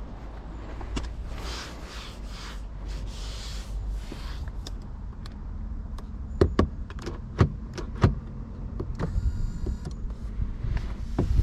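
Sharp knocks and taps on a 2023 BMW Z4 M40i, several in quick succession with the loudest three a second or so apart, then a brief electric-motor buzz, over a steady low rumble.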